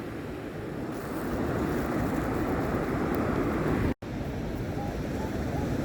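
Steady outdoor beach noise of wind and surf, with a brief sudden dropout about four seconds in.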